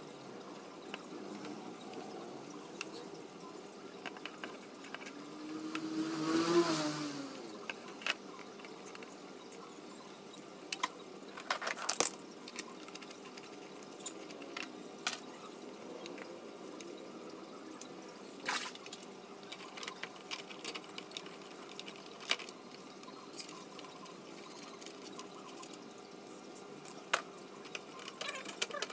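Scattered clicks and knocks of a plastic scooter body panel being handled and fitted onto the frame, over a steady low hum. A short wavering whine stands out about six seconds in.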